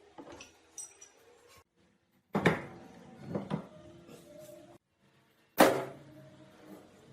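Metal parts of a hydraulic floor jack knocking and clinking as they are handled, with several sharp knocks that ring briefly; the loudest comes about two and a half seconds in and another near the end.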